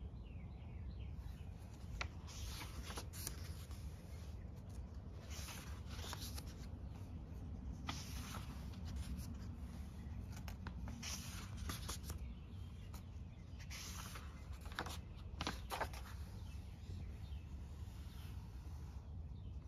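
Paper pages of a Dingbats hardcover notebook being handled and turned by hand: a series of short, scattered papery rustles and rubs, over a steady low background rumble.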